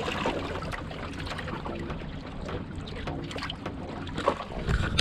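River water lapping and sloshing among rocks, with small clicks scattered through it and a louder low rumble near the end.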